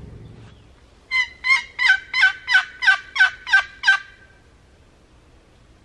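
Turkey yelping: a loud series of about nine notes, roughly three a second, each note breaking downward in pitch, lasting about three seconds.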